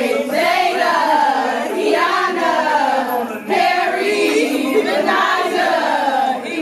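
A group of girls singing a chant together in unison, their voices rising and falling in pitch without a break.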